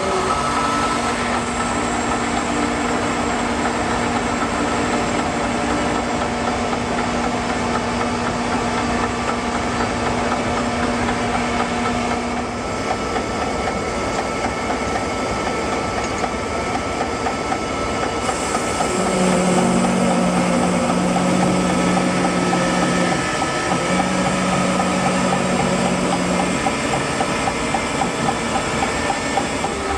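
Portable sawmill running and sawing through a walnut log, a steady machine noise throughout. Its pitched hum stops about twelve seconds in, and a lower hum comes in about two-thirds of the way through.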